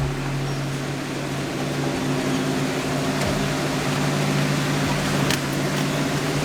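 Jeep CJ7's engine running steadily as it drives through a rough, wet tunnel, with one short knock a little after five seconds in.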